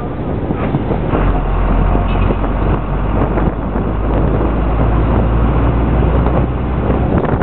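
Steady ride noise of a moving bus heard from on board: a low rumble with road and wind noise, easing near the end.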